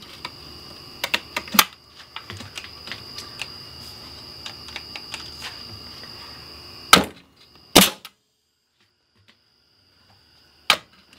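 Porter Cable FR350A pneumatic framing nailer firing nails into a wooden 2x6: two sharp cracks about a second apart just past halfway, and a third near the end, after a run of light clicks and taps. The gun is firing properly again, no longer leaking air after its seal was replaced.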